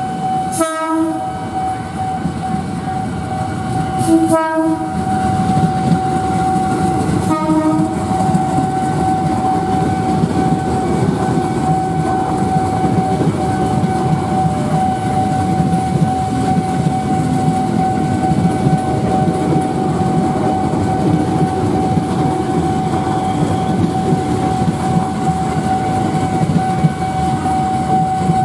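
KRL commuter electric train sounding three short horn blasts in the first eight seconds, then its cars rolling past with a steady rumble and clatter of wheels on rail. A level-crossing warning alarm sounds one steady tone throughout.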